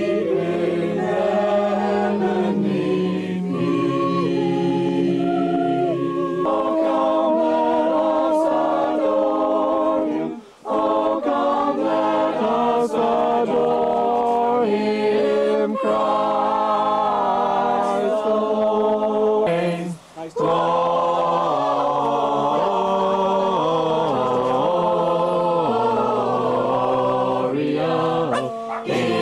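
A small group singing a Christmas carol together, unaccompanied, several voices at once, with two brief breaks between phrases.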